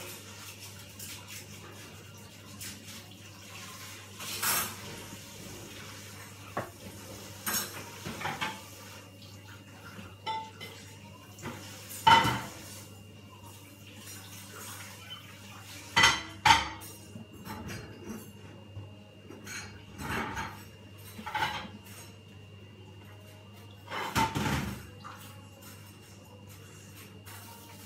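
Kitchen clatter: dishes and metal utensils knocking and clinking at irregular intervals, loudest about twelve seconds in, twice in quick succession around sixteen seconds, and again near the end, over a steady low hum.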